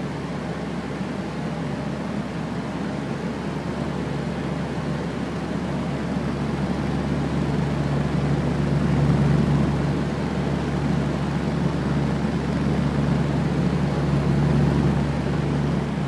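Fan running steadily: an even rush of moving air over a low motor hum, swelling slightly twice, about halfway through and near the end.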